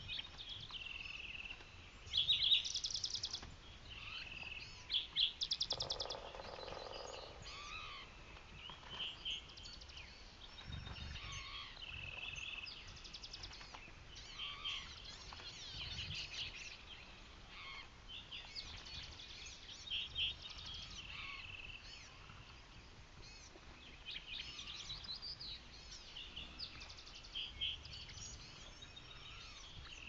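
Morning chorus of several songbirds: overlapping chirps, whistled phrases and rapid trills, with a loud quick trill about two seconds in. A lower, rapidly pulsing sound comes in about six seconds in and lasts over a second.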